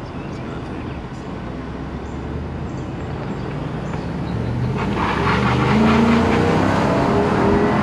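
Ford F-250 Super Duty pickup's engine pulling as the truck accelerates, its pitch and loudness climbing from about halfway through. Wind rushes past the open, roofless cab as the speed builds.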